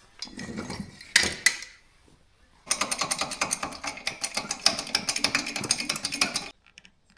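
Tool work on a lawn tractor wheel: a few knocks, then a fast mechanical rattling clatter lasting about four seconds that cuts off suddenly.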